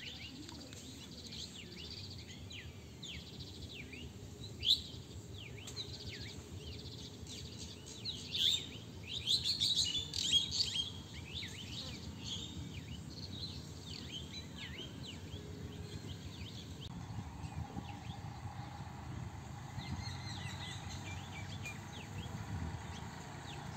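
Small birds chirping and calling in quick, short notes, busiest and loudest about nine to eleven seconds in, over steady low background noise.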